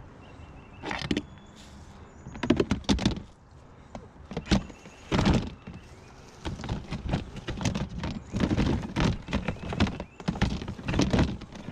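Hollow plastic storage totes knocking and clattering as they are handled and stacked: a few separate thunks early on, then a denser run of bumps and rattles over the second half.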